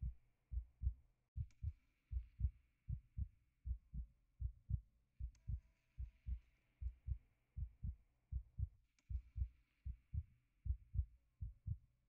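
Heartbeat: a steady, regular lub-dub of paired low thumps.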